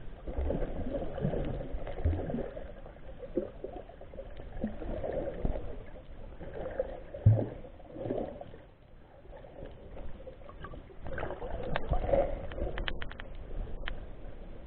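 Sea water lapping and sloshing in uneven swells, with a few sharp clicks near the end.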